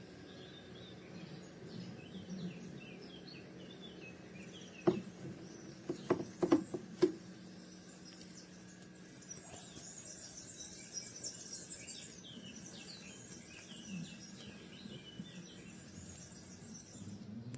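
Small birds chirping and twittering over a faint steady background, with a quick series of four or five sharp knocks about five to seven seconds in.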